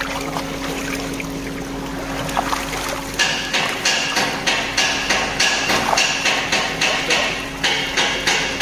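A steady low hum with faint water noise, then about three seconds in background music starts with a steady percussive beat of about two strikes a second.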